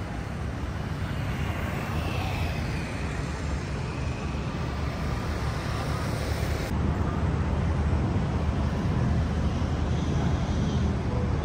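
Steady city street traffic noise, a continuous low rumble with no single event standing out; the sound changes abruptly about seven seconds in.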